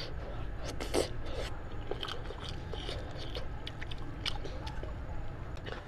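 Fingers tearing meat off a whole cooked sheep's head: a string of small wet clicks and rips, with chewing, the sharpest click about a second in.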